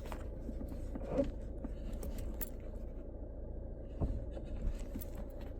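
Car idling, heard as a steady low hum inside the cabin, with a few light clicks and knocks: one about a second in and two more around four and five seconds in.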